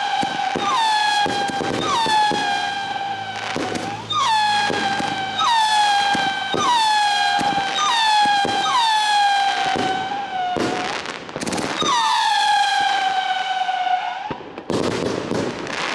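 Two whistle-pot firework cakes, De Lethal Whistle and Erotica, firing together. A new whistle starts about once a second, each one dipping in pitch and then holding a long high tone, overlapping the last, with sharp cracks between the shots. Near the end the whistling stops and a burst of crackling follows.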